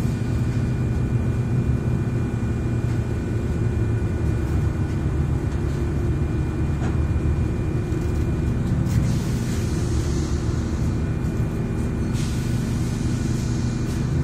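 Inside a PESA SA134 diesel railbus running along the line: a steady low drone from the engine and running gear, with more hiss added over the last few seconds.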